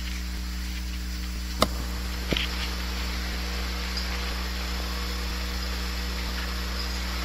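Steady electrical mains hum with a faint hiss, broken by a sharp click about one and a half seconds in and a smaller click just under a second later.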